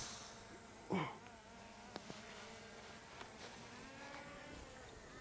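Faint outdoor background with a steady high insect drone. The last of an iron shot's strike fades away at the very start, and a short voice-like sound comes about a second in.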